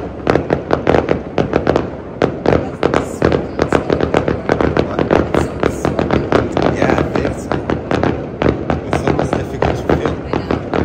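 Fireworks going off in a dense, unbroken barrage of sharp bangs and crackling, several a second.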